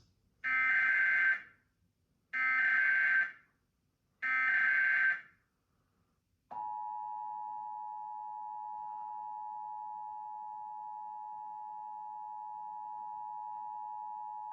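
Emergency Alert System preamble for a Civil Emergency Message: three buzzy one-second bursts of SAME digital header data, then, about six and a half seconds in, the steady two-tone EAS attention signal held for about eight seconds before cutting off.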